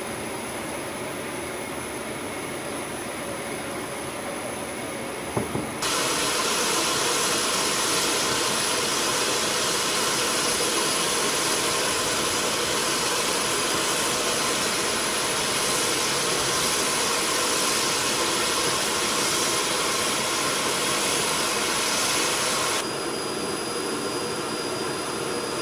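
Lockheed C-5A Galaxy's GE TF39 turbofan engines running on the ramp: a steady roar with a thin high turbine whine. The sound jumps louder about six seconds in and drops back near the end.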